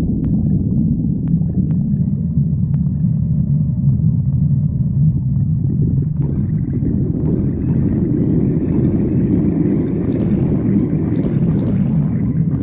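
A hungry person's stomach growling: a continuous low rumble. About halfway through, a higher, rougher gurgle joins it and grows stronger toward the end.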